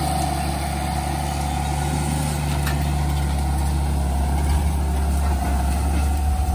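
John Deere tractor engine running steadily as the tractor pulls a groover cutting irrigation furrows between corn rows.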